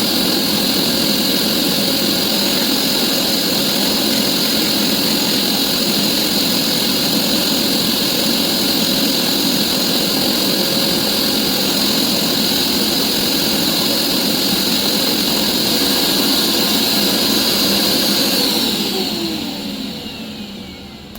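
Hoover carpet cleaner's motor running with a steady whine. It is switched off near the end and winds down, its pitch falling.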